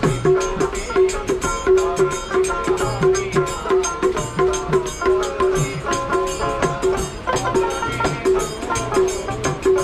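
Live Baul folk music: a double-headed barrel drum beaten in a steady, quick rhythm with bass strokes that bend in pitch, under a plucked long-necked string instrument repeating a note.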